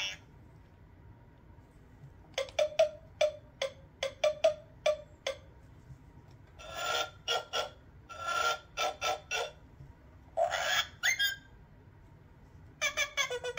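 Sound effects from the button panel of a Fisher-Price Little People Animal Adventure play-a-sound book, coming through its small built-in toy speaker. Several groups of short, clipped noises and calls follow one another with short pauses, one group per button press.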